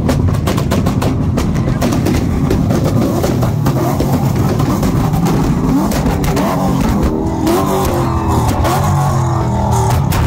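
Car engines held on a two-step rev limiter, letting out a rapid, irregular crackle of exhaust pops and bangs over the running engines. The revs rise and fall in the second half.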